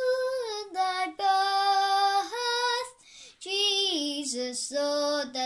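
A young boy singing solo and unaccompanied, holding long sung notes in two phrases with a short breath about three seconds in.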